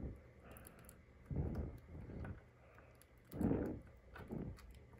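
Four soft, short handling sounds, about a second apart: fingers rubbing and pressing Kapton tape down onto a phone's button flex cable on a rubber repair mat.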